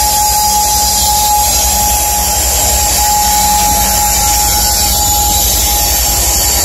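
Loaded coal train passing close by behind a Union Pacific diesel locomotive: a steady, high-pitched squeal of steel wheels rubbing against the rail over the deep rumble of the locomotive and wheels.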